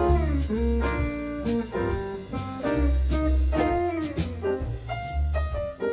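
Background music: an instrumental tune with a heavy bass line, steady drum hits and a lead that slides between notes.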